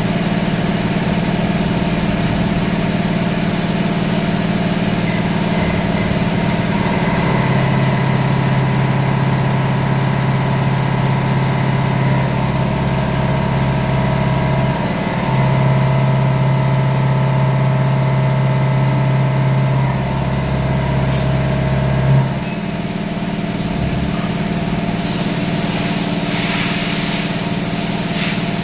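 CNC vertical machining centre running with a steady hum of several tones. A deeper spindle tone comes in about seven seconds in and stops about twenty-two seconds in. Near the end a loud hiss of compressed air blowing starts.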